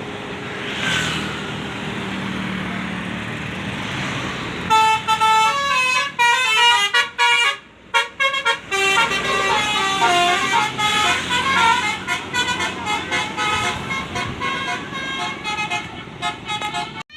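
Road noise from a passing vehicle, then a bus's Basuri 'telolet' multi-tone musical horn playing a rapid tune of short notes for about twelve seconds, with a brief break about three seconds into the tune.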